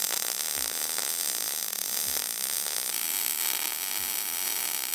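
MIG welder arc crackling and hissing steadily as a steel gusset is welded onto a go-kart's tube frame. The tone of the crackle shifts about three seconds in.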